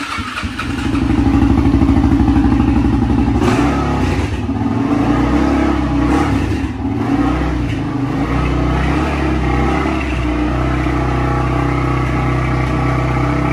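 Suzuki sport quad's engine running after being brought back to life, with a rise in revs about a second in, then running steadily. It is running properly again now that the clogged fuel filter and the gas tank have been cleaned out.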